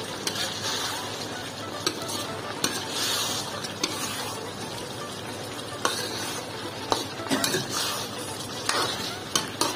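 Chicken and onion masala sizzling in a large karahi while a long-handled metal spoon stirs it, with a steady frying hiss and the spoon scraping and clinking against the pan every second or so.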